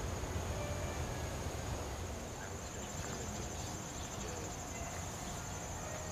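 Singing insects trilling steadily on one high pitch, over a low rumble.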